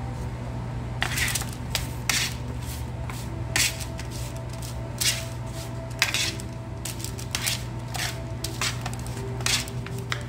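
Metal spoon clinking and scraping against a parchment-lined baking tray as cubed sweet potato is tossed in oil and spices: about a dozen sharp clicks at irregular intervals over a steady low hum.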